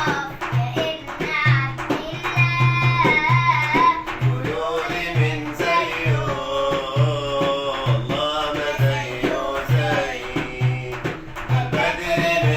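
Music for an Arabic devotional song (nasheed): a melody over a steady, repeating drum beat.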